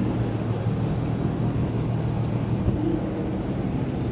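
A car engine running steadily, a low even hum.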